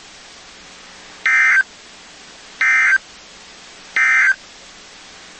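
Emergency Alert System end-of-message code on NOAA Weather Radio: three short, identical bursts of SAME data tones, about 1.4 s apart, over faint radio hiss.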